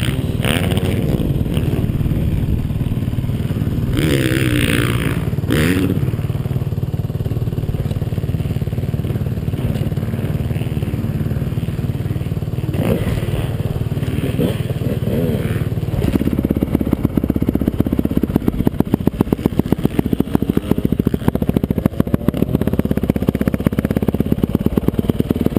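Honda CRF450 dirt bike's single-cylinder four-stroke engine running at idle. About two-thirds of the way through, its note changes to a more marked, even pulsing.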